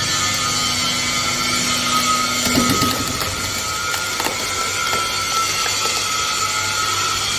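Sawmill wood-cutting saw machine running through timber: a steady high blade whine over a motor hum and rasping cutting noise, growing louder and rougher for a moment about two and a half seconds in.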